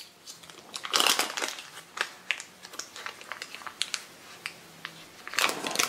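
Paper wrapper crinkling as it is peeled open from a stick of butter. The crackles come irregularly and are loudest about a second in and again near the end.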